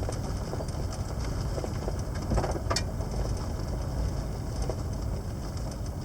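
Vehicle driving: a steady low rumble of engine and tyres, with a couple of sharp knocks or rattles about two and a half seconds in.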